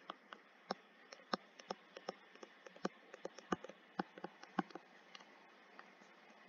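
Faint, irregular clicks and taps of a stylus pen on a tablet screen as words are handwritten, over a low steady hiss. The taps come thickly for about five seconds, then thin out.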